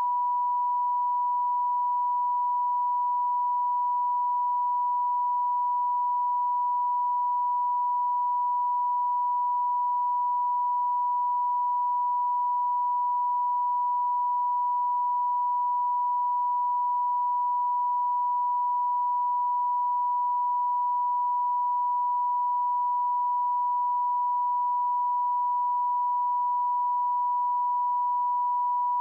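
Television test-card line-up tone: one steady, unbroken pure tone played with colour bars, the signal that the channel is off air for a technical break.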